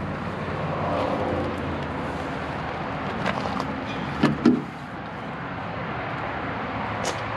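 Metal knocks and clanks as the cargo bed of an M35 Deuce and a Half military truck is opened by hand, the loudest two close together about four seconds in, over a steady low hum.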